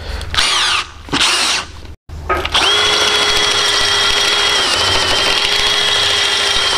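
Cordless drill boring into the old rubber bushing of a leaf-spring eye held in a bench vise. A few short stop-start bursts come first, then after a brief pause a steady run with a high whine that dips for a moment under load partway through.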